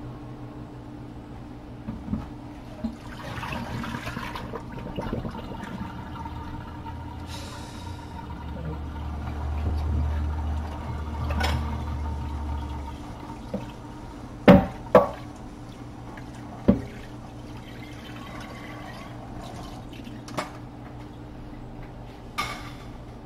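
Kitchen sounds: water running for a few seconds around the middle, over a steady low hum, then several sharp knocks as cookware is handled.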